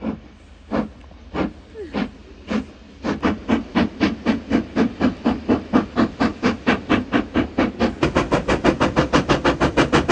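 Steam locomotive chuffing as it pulls away from a standstill. The exhaust beats are sparse and widely spaced at first, then settle into an even rhythm that quickens to about four or five a second.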